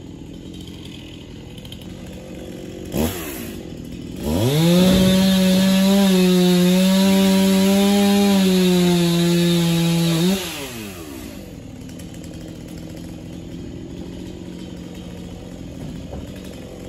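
A chainsaw is revved to full throttle about four seconds in and held there for roughly six seconds, its pitch dipping slightly as it loads up, before the throttle is released and it winds down. A short sharp knock comes just before it starts.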